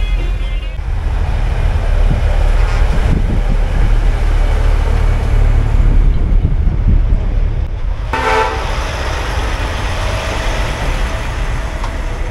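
Truck diesel engines rumbling steadily in a waiting convoy, a little louder for a few seconds as a tractor unit rolls past. About eight seconds in, a vehicle horn gives one short toot.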